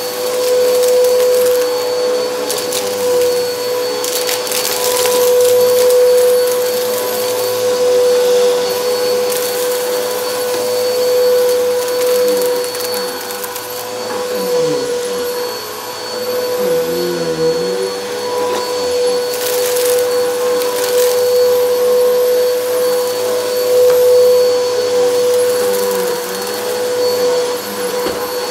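Helix Turbo bagless upright vacuum running on carpet, its motor a steady whine. There are short rushes of hiss about four seconds in and again around twenty seconds in as debris is sucked up. Near the middle the motor's pitch dips and wavers for a few seconds while the vacuum is tipped and steered.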